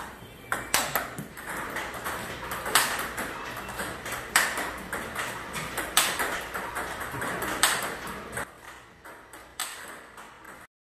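Table tennis ball being driven off a rubber paddle and bouncing on the table, sharp clicks repeating: a loud hit about every one and a half seconds, with softer bounces between. The strokes are forehand drives against backspin.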